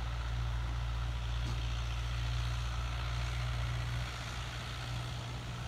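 Farm tractor's diesel engine running steadily with a low hum as it pulls a field cultivator under load, easing slightly about four seconds in.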